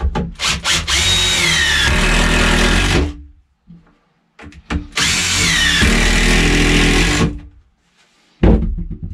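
Cordless impact driver driving two screws into 2x4 framing lumber. Each screw begins with a few quick trigger blips and then a run of about two seconds, and the motor's pitch drops as the screw seats. A short, sudden loud sound comes near the end.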